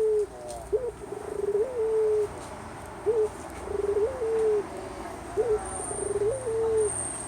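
A puter dove cooing a repeated two-part call, about three times: a short rising note followed by a longer, held, slightly falling coo, every couple of seconds.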